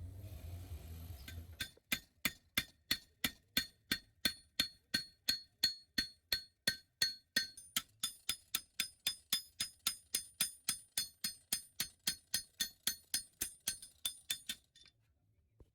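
A hammer striking metal in a steady rhythm, about three blows a second, each blow ringing with a clear tone. The ringing pitch jumps higher about halfway through, as if a different spot or piece of metal is being struck.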